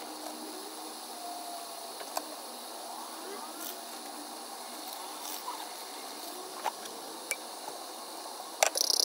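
Noodles sizzling faintly in a non-stick pot on the stove: a steady soft hiss with a few light clicks, and louder crackling near the end as the seasoning and sauce are stirred in.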